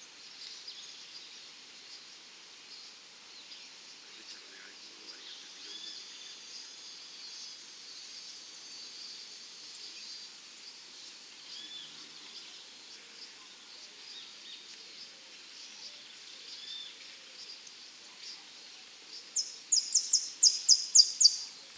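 Saffron finch (dorado) singing. Faint high chirps and short notes are heard throughout, then near the end comes a loud, fast run of repeated high notes.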